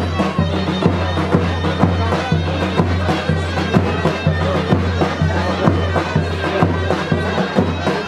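Traditional Turkish folk dance music: a loud, reedy wind instrument playing a melody over a steady drum beat, with a continuous low drone.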